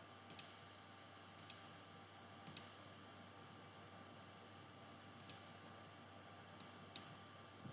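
Computer mouse clicks, sharp and faint, several in quick pairs like double-clicks, spread across a few seconds over near-silent room tone.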